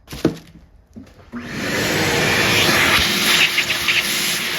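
A vacuum cleaner switched on about a second in after a short knock. It spins up over half a second, then runs steadily with a loud, even rush.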